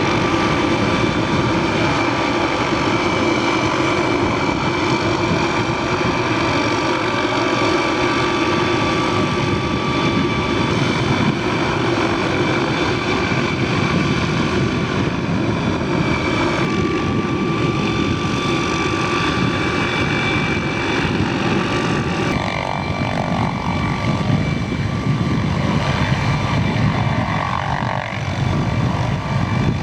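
Rotor aircraft running steadily, with a constant high whine over a dense rotor wash. The tone shifts a little over halfway through and again about three quarters in.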